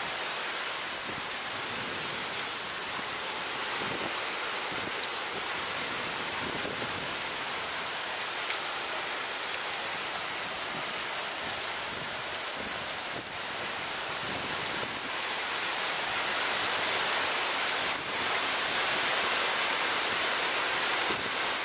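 Haboob (desert dust storm) wind blowing hard: a steady rushing hiss of wind-driven dust and rain, louder in the last few seconds.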